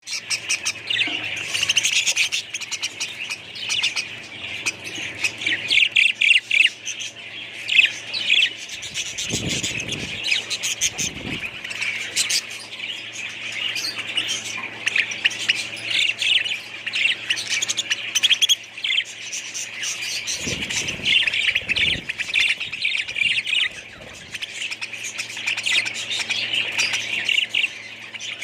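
Many small birds chattering and chirping continuously in a dense mix of quick high calls and squawks. Low rumbles come in twice, around ten seconds in and again around twenty-one seconds in.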